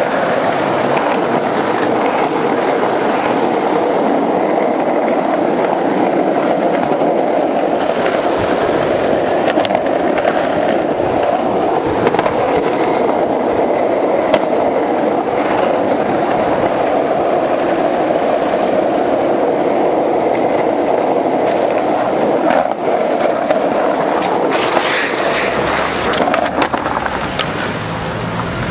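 Skateboard wheels rolling over street pavement: a steady, loud rolling rumble with a few sharp knocks along the way. Near the end a car drives past.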